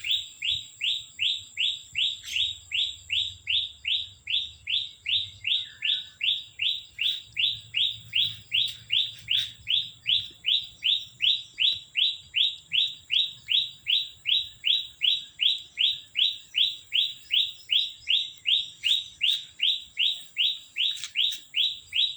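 A bird chirping over and over at a very even pace, about two and a half short rising chirps a second, without a break.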